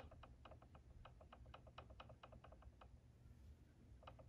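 Faint quick ticks, about eight a second, of the Traxxas Bandit VXL's plastic spur gear being rocked back and forth against the motor's pinion gear, stopping about three seconds in and starting again near the end. The tick is the gear lash while the mesh is being set: a little play is still left between the gears.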